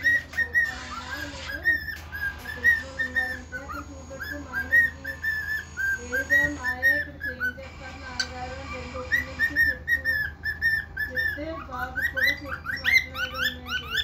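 Cockatiel whistling its song: a long string of short, pitched notes that bend up and down, ending in a quicker run of sharply rising notes.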